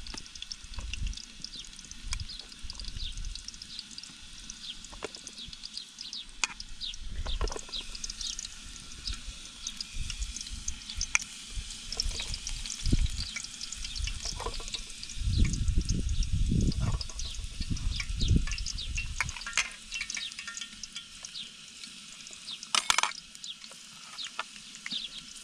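Vegetable slices frying in a pan of hot oil, a steady sizzle with fine crackling pops. There are dull low bumps in the middle and a sharp clack near the end.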